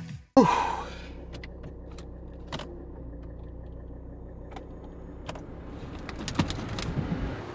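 Steady low hum of a Volvo car's engine running, heard from inside the cabin. A brief loud sound with a falling pitch comes just after the start, and light clicks come through now and then.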